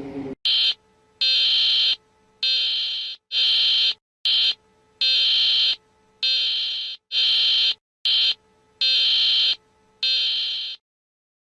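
Electronic emergency-alert warning tone: loud high-pitched beeps in a repeating pattern of one short beep followed by three longer ones, three times over, then it stops shortly before the end.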